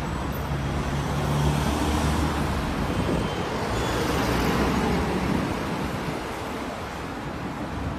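Street traffic: motor vehicles passing with a low engine hum, swelling twice and easing off about six seconds in.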